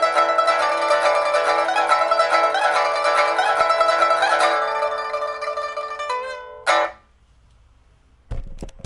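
A lauan-wood pipa, freshly repaired with a new soundboard, frets and rosewood pegs and strung with Dunhuang strings, played in a test after the repair: rapid plucked notes that thin out, then one final struck chord, damped abruptly about seven seconds in. A low thump follows near the end.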